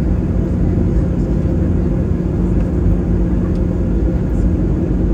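Airliner cabin noise: a steady rumble of engines and rushing air with a constant low hum underneath.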